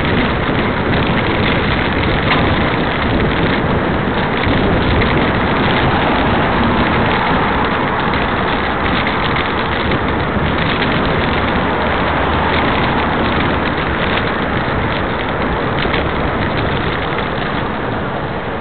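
Steady, loud rushing noise of travel at speed along a road: wind and road noise on the microphone.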